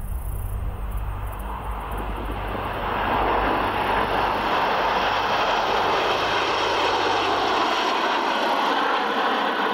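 Formation of Canadian Forces Snowbirds CT-114 Tutor jets flying past, their turbojets a broad rushing jet noise that swells about three seconds in and then holds steady. Low background music fades out underneath in the first few seconds.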